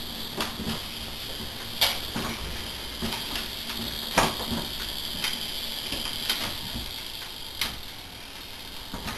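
Small battery-electric ride-on locomotive running on a track of wooden rails: a steady high motor whine with irregular clicks and knocks from the wheels on the timber track.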